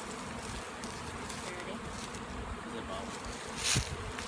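Honeybees buzzing steadily around an open hive and bee package, a constant insect hum. A brief scratchy rustle about three and a half seconds in.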